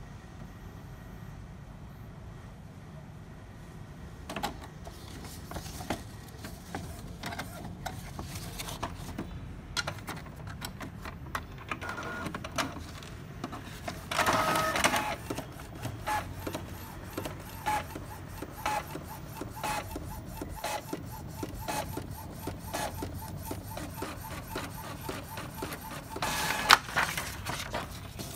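Epson Stylus Photo T60 inkjet printer printing a test page: a run of irregular clicks and mechanical ticks from the paper feed and print head, starting about four seconds in. Paper rustles loudly about halfway through and again near the end.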